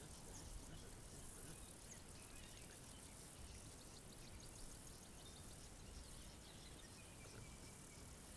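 Faint savanna ambience: a steady high-pitched insect buzz with a few short, distant bird chirps and a low rumble underneath.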